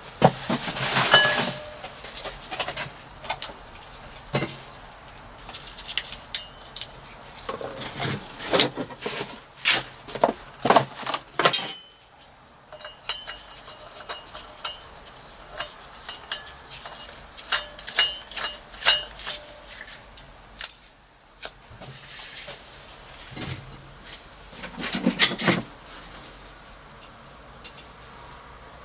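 Irregular clinks and knocks of metal parts and tools being handled and set down on a workbench, in clusters with quieter gaps.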